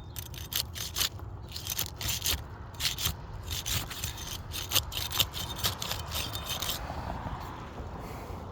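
A flat trowel scraping and prying at old asphalt roof shingles in a quick run of short strokes that stops about seven seconds in. The shingles are so old that they rip instead of lifting, their adhesive holding fast.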